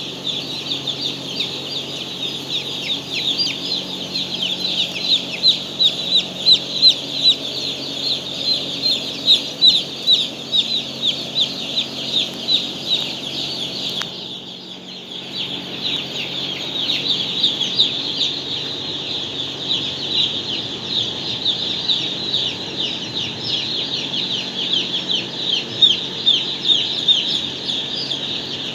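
A brood of chicks peeping constantly, many high falling chirps overlapping. About halfway through, a sudden short sound, a cough, startles them. The peeping stops for a second or two, then builds back up.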